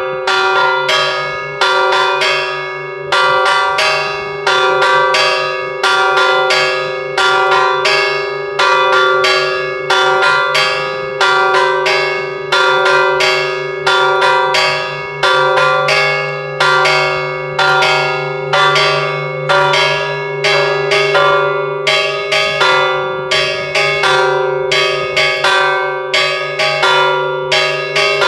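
A church bell in its tower, rung by a rope pulled on its clapper, struck over and over in a quick, steady rhythm. Each stroke rings on into the next, so the tone hums on unbroken beneath the strikes.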